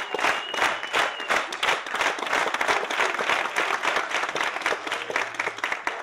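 Audience applauding: dense clapping from many hands that thins slightly toward the end.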